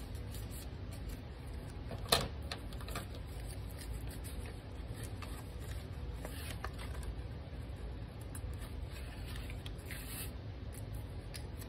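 Paper being handled, rubbed and creased by hand, with scissors snipping a paper strip around the middle and a single sharp tap about two seconds in, over a steady low hum.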